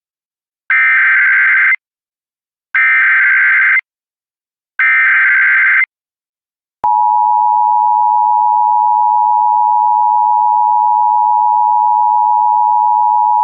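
Emergency Alert System tones: three one-second bursts of SAME digital header data, followed about seven seconds in by the steady two-tone EAS attention signal. Together they mark the start of an emergency alert, here a fire evacuation warning.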